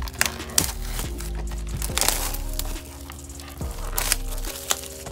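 Plastic wrapping on an album crinkling in irregular sharp crackles as it is cut open with scissors, over background music with a steady beat.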